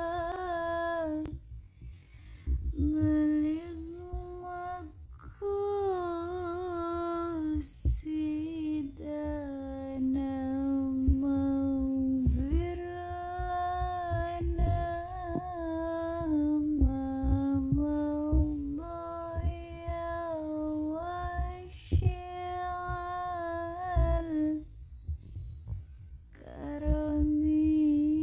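A woman's solo voice singing a slow sholawat melody in long held notes that step up and down, without clear words.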